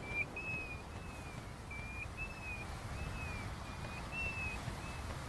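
A bird calling over and over: about ten short, thin whistled notes, roughly two a second, some rising and some falling slightly, over a low, steady background rumble.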